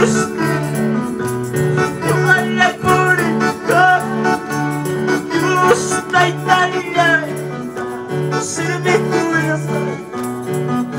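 Worship music on an electronic keyboard, with a bass line that steps between held notes over a steady rhythm, and voices singing over it.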